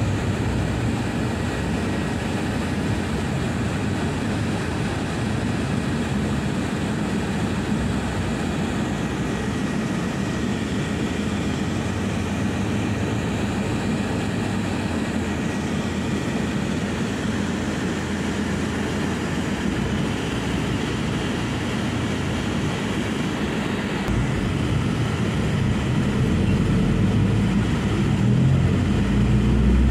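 Engine and road noise heard from inside a passenger van driving through traffic, steady, then growing louder and deeper over the last few seconds.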